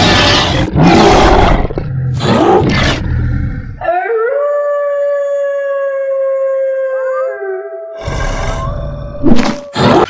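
Horror soundtrack with a wolf howl sound effect. Loud harsh noise bursts come first, then one long howl held on a steady pitch that steps slightly higher near its end, then more loud noise bursts.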